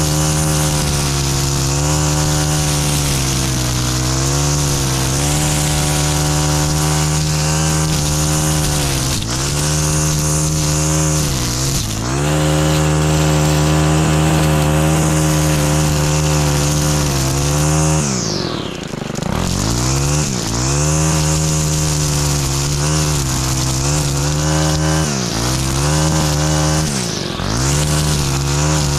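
Stihl FS 91 R string trimmer's small 4-MIX engine running at high revs while its line head cuts through thick overgrown weeds. The engine speed dips briefly several times and drops deeply once, about two-thirds of the way through, before climbing back to full speed.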